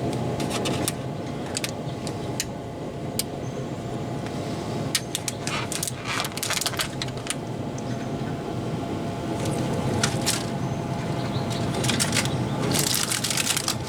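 Pellet smoker running with a steady fan hum, while short metallic clicks and clinks come as food is set onto the grill grates. The clinks come in clusters, most of them near the end.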